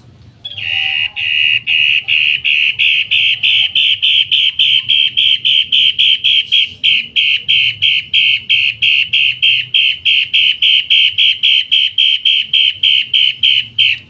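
A caged cendet matahari calling a fast, unbroken series of harsh, loud notes, about four a second, starting about half a second in.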